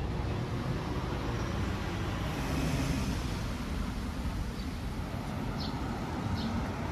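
Steady rushing noise of road traffic going by, with a few short, high chirps in the second half.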